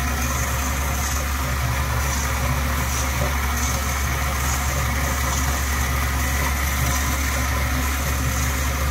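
Water rushing steadily through a Flushmate pressure-assist cartridge that has not yet sealed, a constant hiss over a low hum, while the cartridge is being calibrated half a turn at a time.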